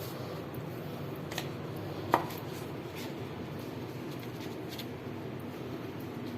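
A ceramic plate being handled during cleaning: a few light clicks and one sharper knock about two seconds in, over a steady low background.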